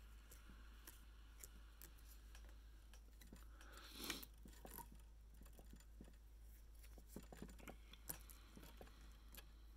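Near silence with faint small clicks and rustles of hands working thread and feathers onto a cork popper at a fly-tying vise, with one louder brief rustle about four seconds in.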